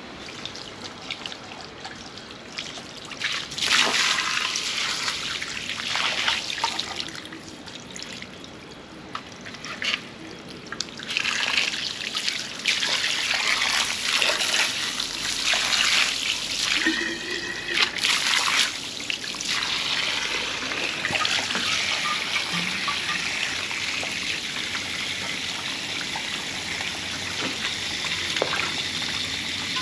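Water trickling and splashing, uneven at first and steadier in the last third, as the water heater's tank and parts are rinsed of scale and sediment.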